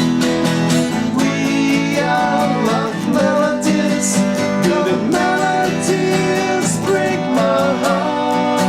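Live rock band playing: strummed acoustic guitar with a second guitar over a steady drum and percussion beat.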